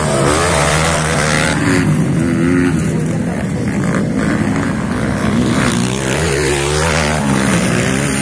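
Several motocross dirt bikes racing on a dirt track, their engines revving up and down in overlapping waves as riders accelerate and shift.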